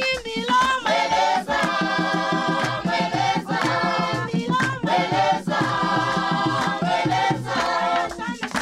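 Choir singing a gospel song in several voices over accompaniment with a steady beat, holding long sung notes.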